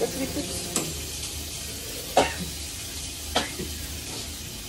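Food sizzling in a pan as it is stir-fried, a steady frying hiss. Three sharp clicks, the loudest in the middle, are heard about a second apart.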